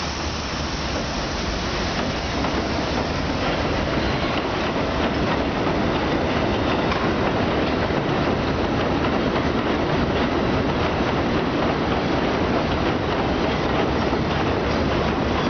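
R32 subway train pulling out of the station and picking up speed as its cars pass, a dense rumble of motors and wheels on rail, growing louder over the first few seconds and then holding steady.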